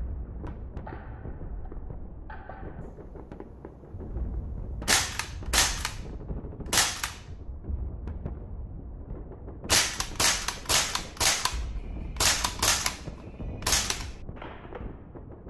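About a dozen sharp, gunshot-like cracks from a gas-powered airsoft M1 Garand firing, in three quick runs of semi-automatic shots with a short room echo after each.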